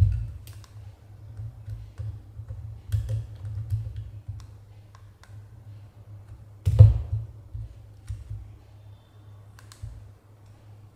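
Small clicks and taps of a screwdriver and plastic camera parts being handled as the LED ring board is pried off the camera module, with one louder knock about seven seconds in.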